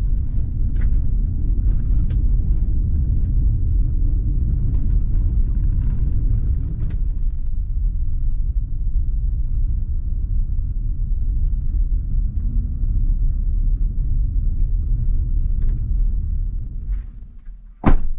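Car driving on a dirt road, heard from inside the cabin: a steady low rumble of tyres and engine with faint scattered ticks. It fades near the end and is cut off by one sharp click.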